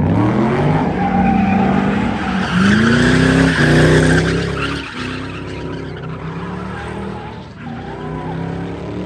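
Car doing a burnout: the engine revs up in rising sweeps while the spinning rear tyres screech. It is loudest around three to four seconds in, then settles to a lower, steadier engine note with continuing tyre noise.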